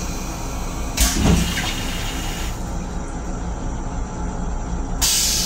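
Stainless-steel toilet on a Metro-North M7 railcar flushing: a sudden loud whoosh about a second in that lasts about a second and a half, then a second hiss of rushing air or water starting near the end. Under it runs the train car's steady low rumble.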